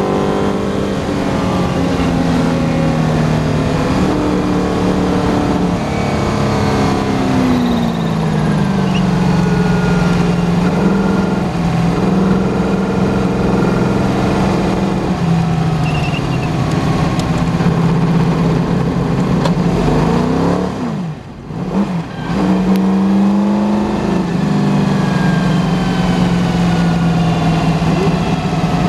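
McLaren M10B Formula 5000's 5-litre Chevrolet V8, heard from the cockpit as the car slows under a red flag. Its revs fall over the first several seconds and then it runs at low revs and part throttle, the pitch stepping up and down. About 21 seconds in the engine note briefly drops away, then picks up again.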